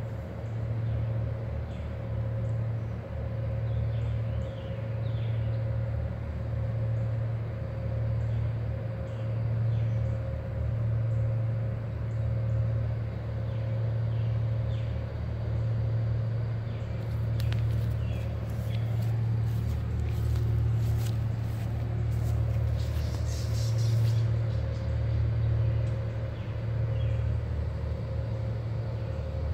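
Towboat's diesel engines pushing a string of barges, heard across the river as a low, steady drone that throbs about once a second, with a faint steady hum above it.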